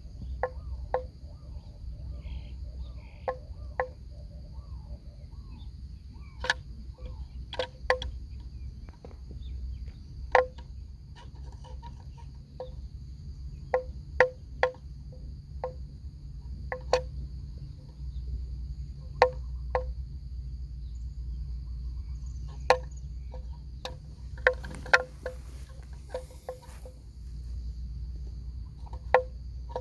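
Irregular sharp knocks, about twenty, each with a brief ringing note, over a steady high insect drone and a low wind rumble.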